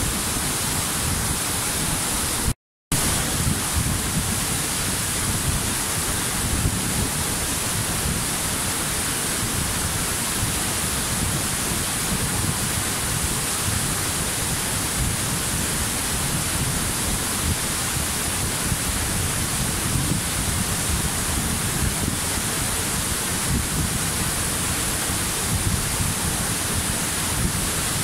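Waterfall rushing in a steady, unbroken roar of falling water, with a split-second dropout to silence about two and a half seconds in.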